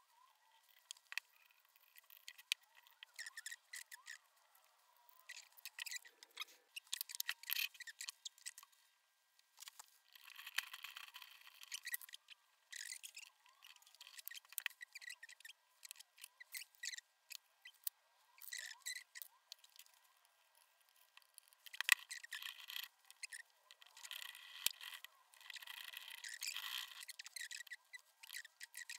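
Masking tape being peeled off freshly painted cast-iron vise parts and crumpled, in irregular crackling, rustling bursts, with a few sharp clicks of the metal vise parts being handled and fitted, the loudest a little after the middle.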